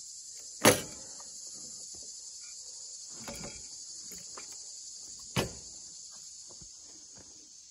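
Metal knocks and clunks as a chain mortiser's steel clamp is loosened and the machine is shifted on a timber beam, with two sharp knocks about a second in and about five seconds in and a softer one between. Under them, a steady high chirring of insects.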